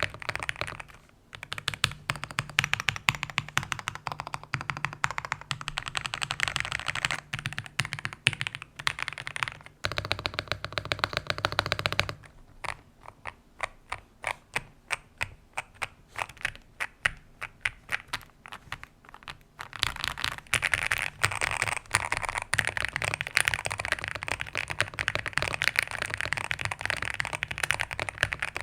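Zuoya GMK67 mechanical keyboard with KTT Kang White V3 linear switches, lubed with 205g0 and tape-modded, being typed on. The typing is fast and continuous for about the first twelve seconds, slows to separate keystrokes about two to three a second through the middle, then turns fast again for the last third.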